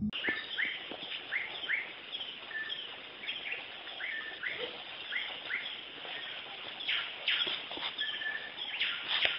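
Small birds chirping over and over, short downward-sliding chirps about twice a second, over a steady background hiss.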